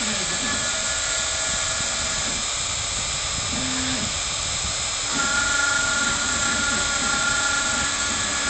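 CNC router spindle whining steadily with a hiss of cutting as it engraves wood; about five seconds in its tone grows stronger and it gets a little louder.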